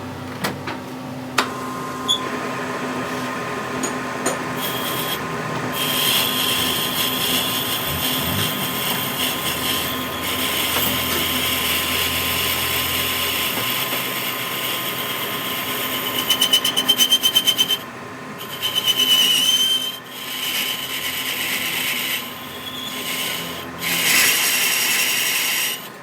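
A power tool running in long stretches during a wheel hub repair, stopping and restarting several times in the last third, with a rapid pulsing stretch just before the first stop.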